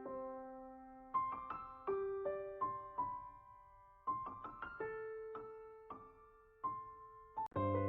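Soft solo piano music: a slow melody of single struck notes that ring and fade, played in short phrases, with a fuller, lower chord coming in near the end.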